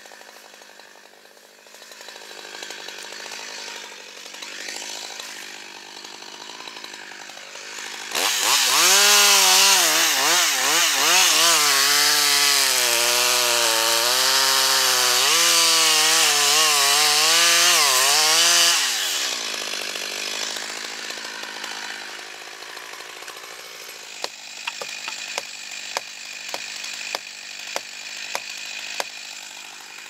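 Two-stroke chainsaw idling, then opened up about eight seconds in for a felling cut into a poplar trunk. For about ten seconds its engine pitch rises and dips under load, then it drops back to idle. Near the end comes a run of sharp ticks.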